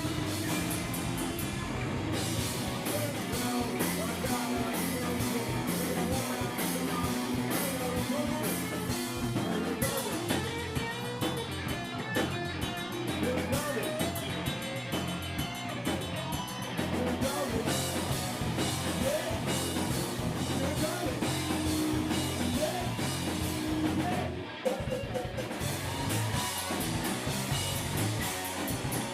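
Live rock band playing, with electric guitar, bass and drum kit, and some singing.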